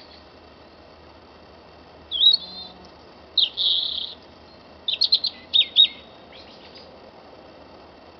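Small songbirds calling at dawn: a short chirping phrase about two seconds in, a longer grating one, then a quick run of sharp high notes past the middle, over a faint steady background hiss.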